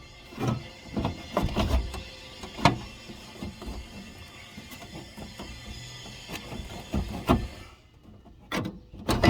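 Irregular clunks, clicks and rattles of hands and tools working on parts inside a car door, with a few sharp knocks near the end.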